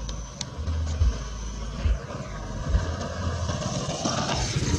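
Jet engines of a SilkAir twin-engine airliner climbing away after take-off: a steady noise with a hiss, with low gusts of wind rumbling on the microphone.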